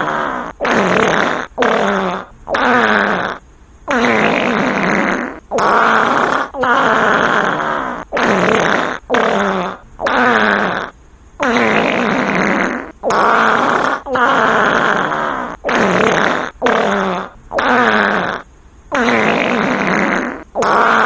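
Fart sounds in quick succession, roughly one a second with short gaps between them: longer drawn-out blasts alternate with short ones whose pitch drops.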